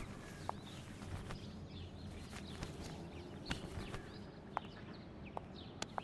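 Quiet room ambience with faint birds chirping outside and the soft rustle and scattered light clicks of a cotton blanket being shaken out and folded.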